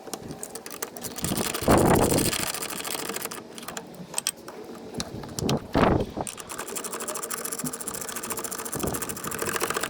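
A 3/8-inch ratchet run back and forth to tighten the nuts holding a brake master cylinder to the booster: long runs of rapid pawl clicking, with two louder knocks about two seconds in and about six seconds in.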